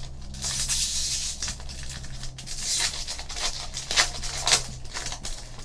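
Trading card pack wrapper tearing and crinkling, with cards clicking and sliding as they are handled.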